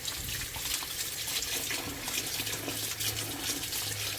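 Running water pouring and splashing over crabs as they are washed by hand: a steady hiss with irregular splashes.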